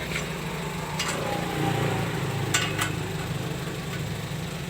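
Engine idling with a turbo-whistle attachment fitted in its exhaust, the revs picking up a little about a second and a half in, with a few sharp clicks.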